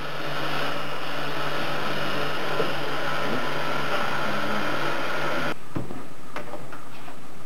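A steady mechanical hum and hiss, the running noise of the labelling machine and its surroundings. About five and a half seconds in it drops away to a quieter background with a few light knocks as a length of plastic trunking is fed by hand into the labeller's guides.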